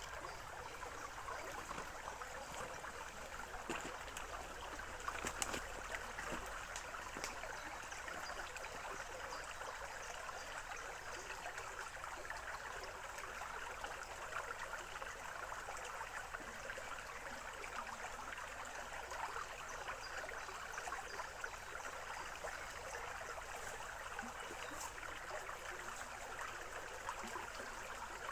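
Small forest stream flowing steadily, an even babbling water noise, with a few sharper ticks about five seconds in.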